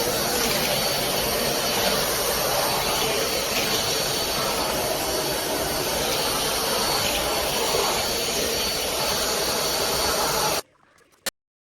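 Vazone R6X corded stick vacuum running steadily: a loud rush of air with a thin, steady high whine from the motor. The sound cuts off abruptly near the end, followed by a single click.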